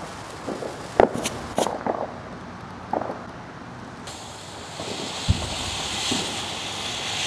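Scattered firework pops and crackles, then, from about four seconds in, a ground fountain firework spraying sparks with a steady hiss, with a single thud partway through.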